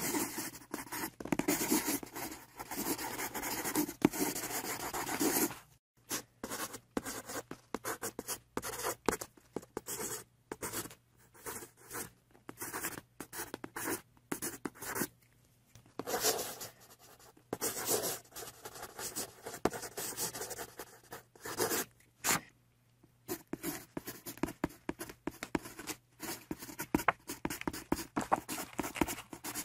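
Felt-tip marker scribbling back and forth on paper, colouring in. The strokes run almost continuously for the first five seconds or so, then come as short separate strokes with brief pauses between.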